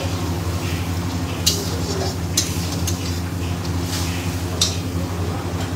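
Wooden spatula stirring thick tomato masala frying in a metal kadai, scraping against the pan with a few sharp scrapes and knocks, over a soft sizzle. A steady low hum runs beneath.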